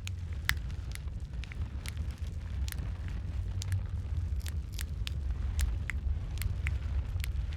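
Wood fire in a fireplace crackling: sharp, irregular pops and snaps, about two a second, over a steady low rumble of the flames.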